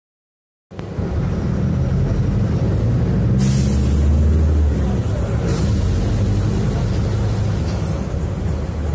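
Bus engine running as the bus pulls away and gathers speed, heard from inside. Two hisses cut in, a longer one about three and a half seconds in and a short one about five and a half seconds in. The sound starts suddenly just under a second in.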